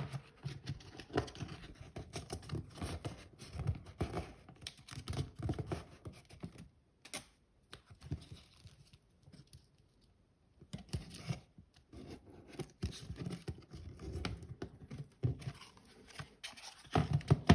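Wallpaper being folded over the back of a switch plate and fixed down with blue painter's tape: irregular rustling, tape peeling and pressing, and small taps, with a quieter stretch midway.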